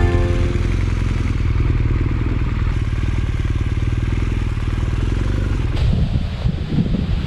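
Motorcycle engine running at low speed as the bike rolls slowly over grass, a steady low hum. About six seconds in the engine sound drops back and wind noise on the microphone takes over.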